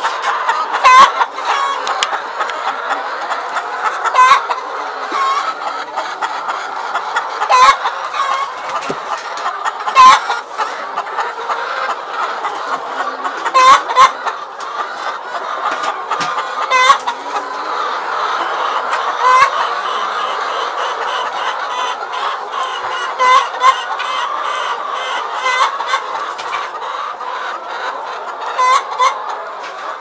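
A large flock of laying hens clucking and chattering without a break, with louder, sharp single calls standing out every few seconds.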